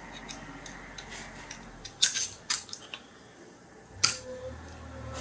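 Metal hand tools, a screwdriver and pliers, clicking and scraping against the valve guides of an International DT466 cylinder head while prying off old valve stem seals that have gone hard. A quick cluster of sharp clicks comes about two seconds in and a single loud click about four seconds in.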